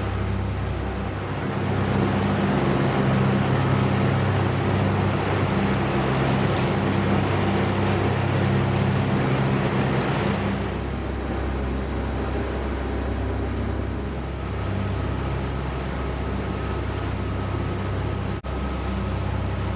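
Twin diesel engines of a Leopard 45 catamaran under way at high throttle, a steady drone under loud rushing water and wind noise. About ten seconds in the rushing noise drops away and the engines carry on at a lower, steady drone.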